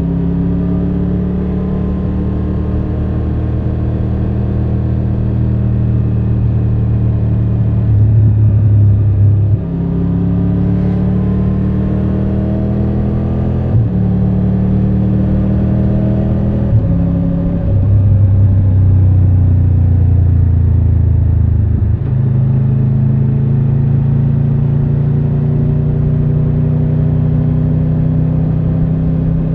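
Triumph Tiger 1200 Rally Pro's inline three-cylinder engine running under way. The engine note climbs slowly, then shifts abruptly in pitch several times, as at gear changes and throttle changes in traffic.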